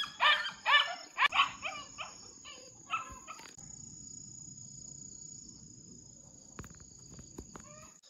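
A lovebird giving a quick run of about eight short, harsh chirps over the first three and a half seconds, over a steady high cricket trill. After that comes low rustling, with a few small clicks near the end.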